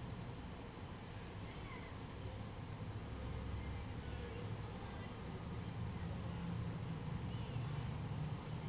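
Night ambience of crickets chirping steadily over a low rumble, with a few faint brief tones.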